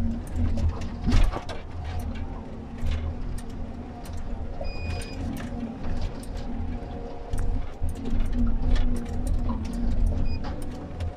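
Komatsu 931.1 harvester's diesel engine and hydraulics running, heard inside the cab as a steady low drone with a hum over it, while the crane swings the harvester head. Scattered clicks and knocks run through it, the loudest about a second in, and a thin high tone sounds briefly near the middle.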